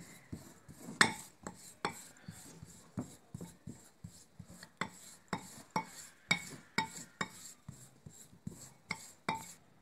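Metal spoon tapping and scraping against a glass bowl while pressing a crushed Oreo-and-butter crumb base flat: a string of short, faint, irregular clicks, about two to three a second.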